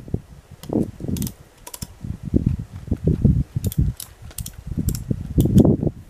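Irregular metal clinks and rattles as gear is worked by hand at the end of a log, about eight sharp clicks over low rustling and thumps of handling.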